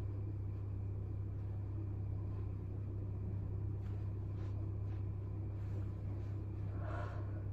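Steady low hum and rumble of a small bathroom exhaust fan, with a few faint soft rustles of a terry towel wiped over the face, about four seconds in and again near the end.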